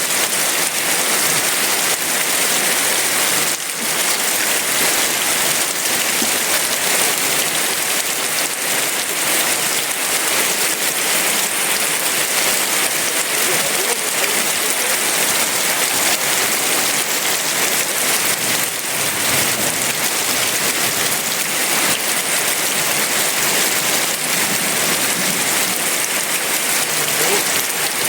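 Heavy rain falling steadily, a dense even hiss of drops with no thunder.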